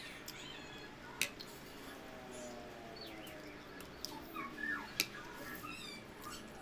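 Eating sounds at a table: a spoon clinks sharply against a glass plate twice, about a second in and again about five seconds in, amid faint short chirps in the background.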